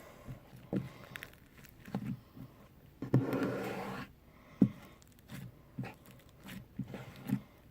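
Slime softened with lotion being squeezed and kneaded by hand, giving a run of short wet squelches and pops, with one longer, louder squish lasting about a second a little before the middle.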